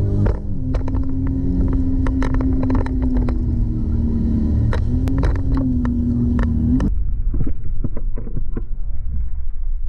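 Sea-Doo personal watercraft running at speed, a steady engine note under water spray slapping against the hull and camera. About seven seconds in, the engine note cuts out, leaving a low rumble and scattered splashes as the craft banks into a hard turn.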